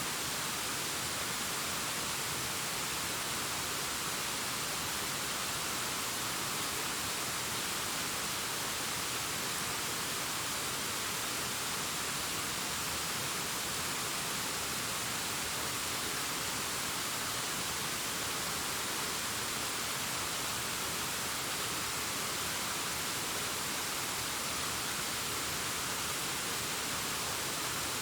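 Waterfall cascading down a rockface: a steady, unchanging rush of water, mostly a bright hiss with little low rumble and no separate splashes.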